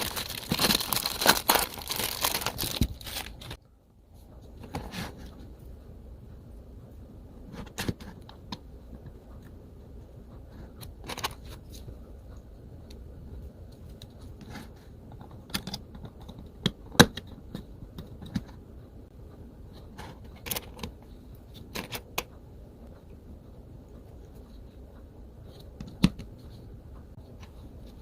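Plastic wrapping crinkling and tearing for the first few seconds as a capsule toy is unpacked, then scattered small clicks and taps of the plastic parts being handled.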